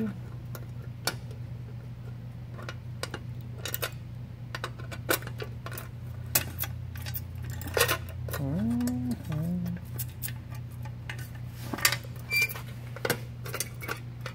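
Irregular metallic clicks and clacks as a key is worked in the barrel lock of a Ural toolbox fuel tank and its lid is pushed at, the lid refusing to close and latch. A steady low hum runs underneath.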